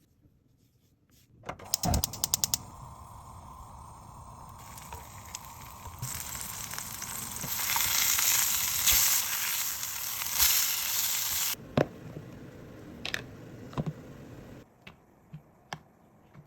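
Food sizzling in a frying pan, preceded by a quick run of clicks near the start. The sizzle grows louder partway through, then stops abruptly, and a few light knocks follow.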